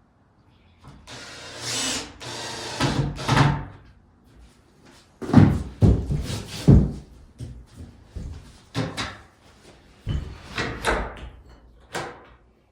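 Workshop door being swung shut and latched against newly fitted striker plates: a couple of seconds of scraping and rattling, then a series of sharp knocks and clacks of the door and its latch.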